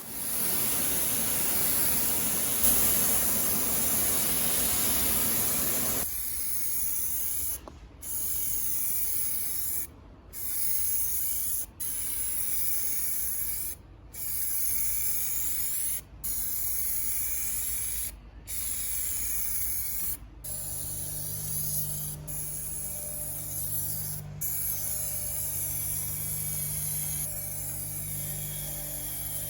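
Hissing spray, like compressed air from an air tool, loud and steady at first, then released in bursts of about two seconds with short breaks between them. A steady low hum joins it about two-thirds of the way in.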